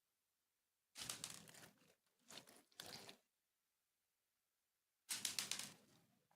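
Crinkling, crackling handling noises in four short bursts: one about a second in, two close together near the middle, and a longer one near the end.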